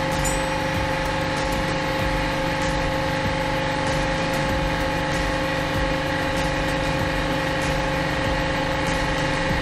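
Hydraulic press's pump motor running with a steady hum, several held tones over a low rumble.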